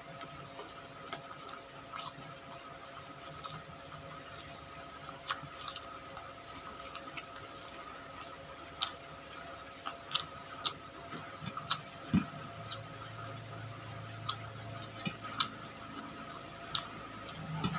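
Close-up eating sounds: chewing and wet mouth clicks while eating fried chicken, irregular sharp clicks over a faint steady hum.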